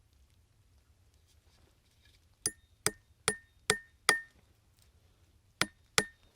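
Seven sharp strikes with a short metallic ring: five in quick succession about 0.4 s apart, then two more near the end.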